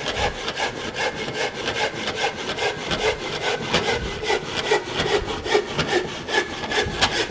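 Handsaw cutting through a length of timber for a noggin, with quick, even back-and-forth strokes.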